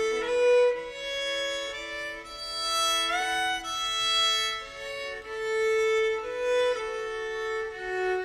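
Background music: a fiddle playing a slow melody of long held notes, with a slide up in pitch about three seconds in.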